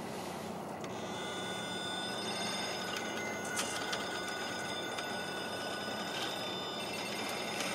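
RC rock crawler's electric motor and geared drivetrain whining steadily as it crawls, with a few faint clicks.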